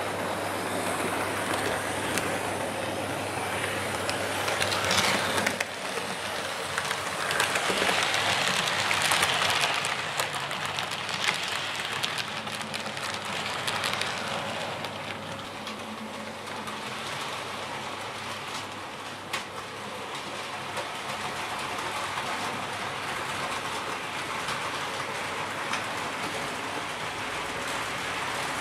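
Hornby Class 73 model locomotive running along the track: a steady rushing whir from its motor and wheels, with scattered small ticks like wheels passing over rail joints. It gets louder for a few seconds in the first third.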